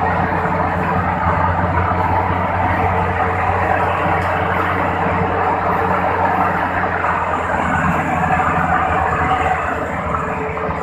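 Rice combine harvester running steadily, a constant engine drone with mechanical noise over it.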